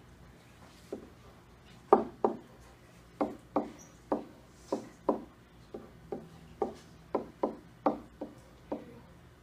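A series of about sixteen sharp knocks or taps on a hard surface, irregularly spaced at about two a second, starting about a second in.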